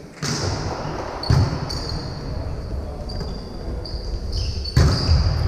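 Volleyball rally in a gym: the ball is struck hard about a second in and again near the end, with short high squeaks of sneakers on the court floor and voices in the hall.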